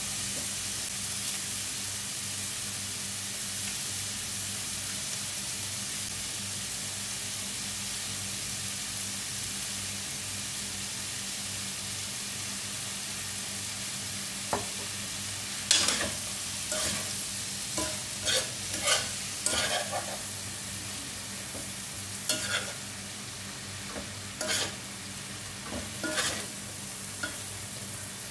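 Long beans, egg, onion and red bell pepper sizzling in oil in a granite-coated pan, a steady hiss. From about halfway through, a metal spoon stirs and scrapes against the pan in a run of sharp clacks.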